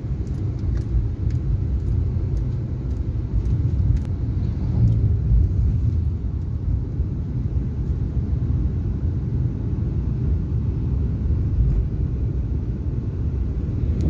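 Steady low rumble of a moving car, engine and road noise, heard from inside the cabin.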